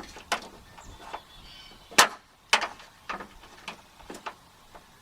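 Irregular metallic clicks and knocks from hand tools and latch hardware being worked on a van's liftgate, about six separate strikes, the loudest about two seconds in.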